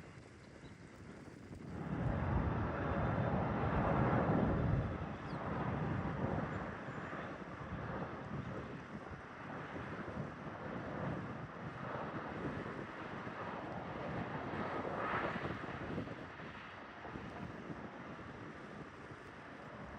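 Jet airliner's engines, a broad rushing roar that swells about two seconds in, peaks soon after, then wavers and eases off near the end, with wind buffeting the microphone.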